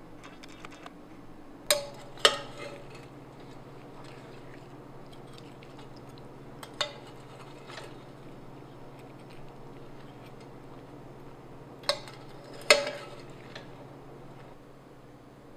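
Metal spoon clinking against a ceramic pot while stirring tea eggs in their steeping liquid. Five sharp knocks, each with a brief ring: two close together about two seconds in, one near the middle, and two more near the end.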